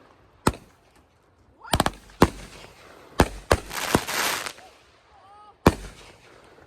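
Consumer aerial fireworks bursting: about seven sharp bangs at irregular intervals, with a spell of crackling near the middle.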